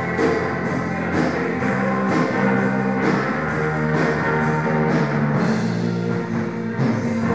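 Rock band playing live on a sound check: a drum kit with cymbal hits about once a second over sustained electric bass and guitar chords.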